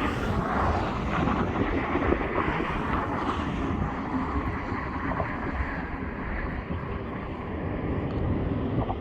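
Steady rushing noise of highway traffic crossing the bridge, mixed with wind buffeting the phone's microphone.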